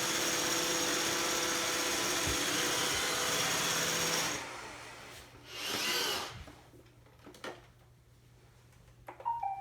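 Roomba robot vacuum running, a steady motor whine and brush noise that cuts off about four seconds in; after it, a brief swish and a couple of clicks.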